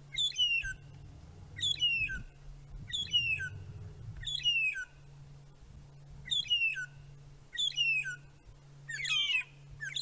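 Magpie shrikes calling: a sad, crying string of clear whistles, each call sliding down in pitch, repeated every second or so with a short break about halfway. Near the end two birds' calls overlap.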